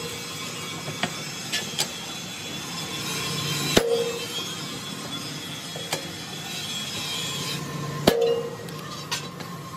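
Hammer blows on a steel punch held against a heavy-duty truck wheel rim plate. There are two heavy, ringing metal strikes about four seconds apart, with lighter taps between them and a steady workshop machine noise underneath.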